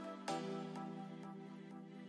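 Soft background music: sustained chords, with a new chord coming in about a third of a second in.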